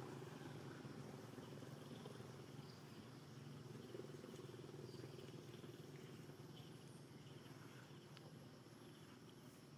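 Near silence: faint outdoor ambience with a low, steady background hum.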